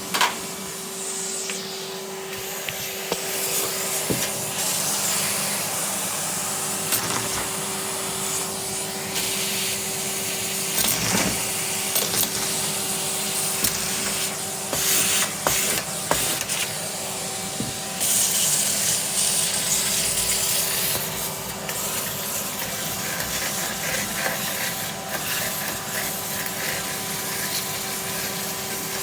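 Henry cylinder vacuum cleaner running steadily, its suction hiss rising and falling as the nozzle moves over the floor. Scattered sharp clicks and rattles come from debris being sucked up the hose.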